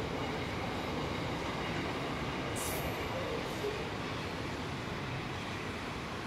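Freight train of container well wagons rolling past at steady speed: an even rumble of wheels on rail, with a brief high hiss about two and a half seconds in.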